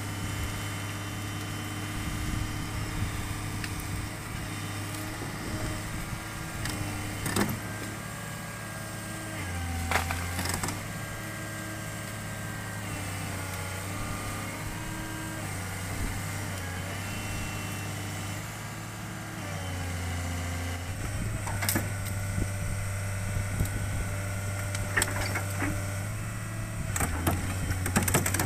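Hitachi excavator's diesel engine running, with a hydraulic whine that rises and falls as the levers are worked; the engine note dips twice under load. A few sharp clanks, more of them near the end.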